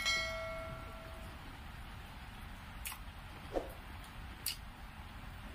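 A metal dish clinks once and rings for about a second as it fades. Then a few soft clicks of rice being mixed by hand on the plate.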